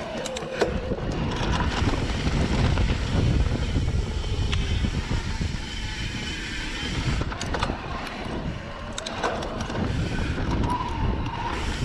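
Santa Cruz Heckler mountain bike rolling fast over a dirt singletrack: a steady rumble of wind buffeting the microphone and tyre noise, with scattered sharp rattles and clicks from the bike jolting over bumps.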